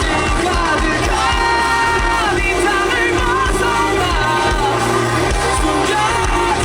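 Live rock band playing at full volume: a sung lead vocal over drums, bass and electric guitar, with a steady beat.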